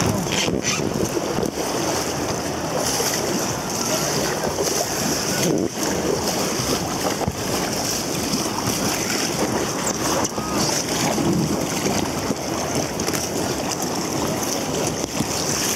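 Steady rushing of river water around a paddled inflatable raft, mixed with wind buffeting the microphone, with a few brief knocks.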